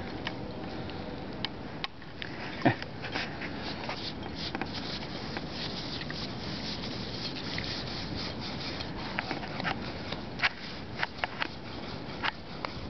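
A dog sniffing and rummaging about while searching, with many small clicks and ticks over a steady rushing background noise.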